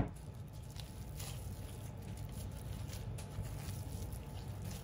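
Faint, soft squishing of raw ground beef being squeezed and pulled apart by hands in thin plastic gloves, over a low steady hum.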